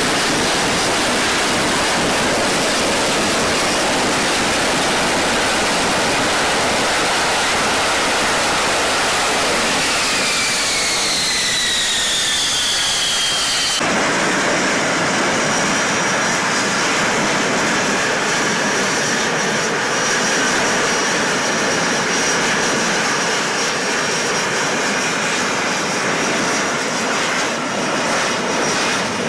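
Lockheed Martin F-35B's jet engine and lift fan running loud and steady in hover mode. High whines fall in pitch from about ten seconds in, and about fourteen seconds in the sound changes abruptly to a steady high whine over the roar.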